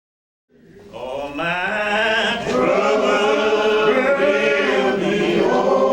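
A group of voices singing together, like a church choir or congregation. It fades in from silence over about the first second, then holds steady.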